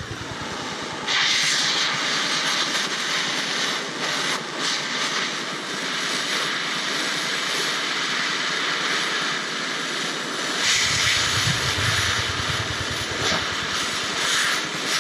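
Handheld gas torch burning with a steady hissing roar as it heats a steel bolt, the flame coming on about a second in. Wind rumbles on the microphone in the last few seconds.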